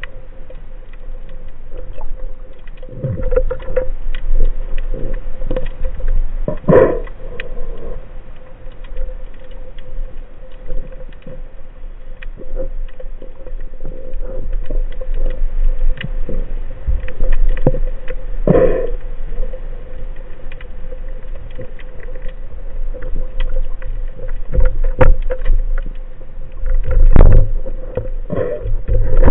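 Underwater sound picked up by a camera in a waterproof housing: a steady hum over a low rumble, with scattered clicks and a few louder bumps as the speargun and the catch are handled.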